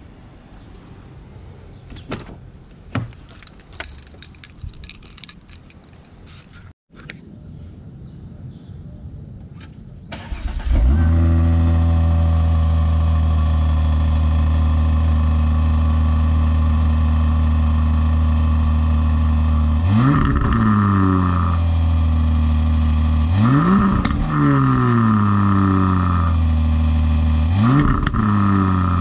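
Volvo V60 Polestar's 3.0-litre inline-six started, catching about a third of the way in and settling into a steady idle, then revved three times near the end, each rev rising and falling back to idle. Before the start, a few scattered clicks and knocks.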